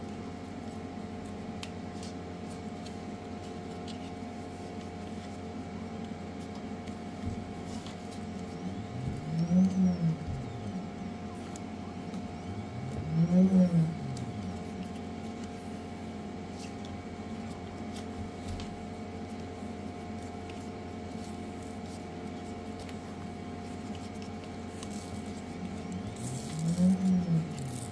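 Anycubic Photon M3 Max resin printer running with a steady hum, while a motor whines up and then back down in pitch three times, about ten seconds in, about thirteen seconds in, and near the end.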